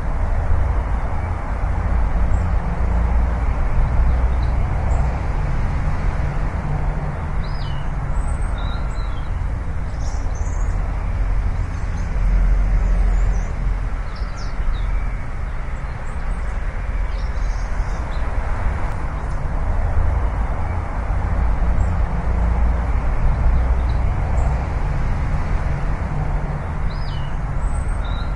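Outdoor ambience: a steady low rumble with a hiss over it, and small birds chirping now and then high above it.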